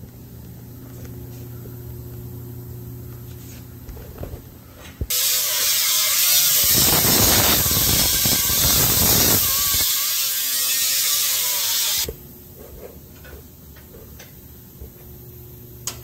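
Welding arc crackling and hissing as a steel plate is welded into a cut in a truck frame: one continuous run of about seven seconds that starts abruptly about five seconds in and cuts off sharply.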